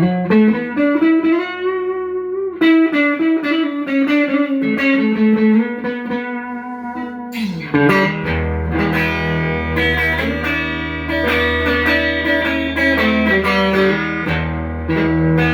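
Electric guitar, a Stratocaster-style partscaster played on its neck pickup. It starts with a single-note melodic line with string bends, then from about eight seconds in plays strummed chords over a ringing low note.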